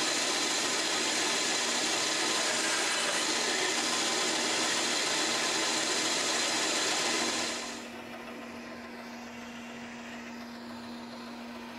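Shopsmith bandsaw and its dust collector running steadily with no wood being cut, a loud, even machine noise. About two-thirds of the way through the noise drops sharply to a quieter steady hum with a single low tone, as one of the machines is switched off.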